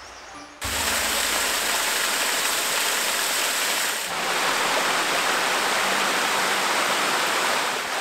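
Water of a waterfall and rocky stream rushing steadily, cutting in suddenly about half a second in, with a slight change in its sound about four seconds in.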